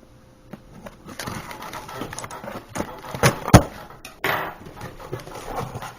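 Handling noises of small objects being picked up and set down: scattered clicks and taps with a brief rustle. Two sharp knocks come a little past halfway, the second the loudest.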